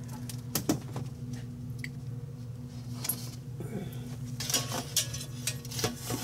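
Kitchen utensils being handled: tongs and kitchenware clicking and clattering lightly a few times, over a steady low hum.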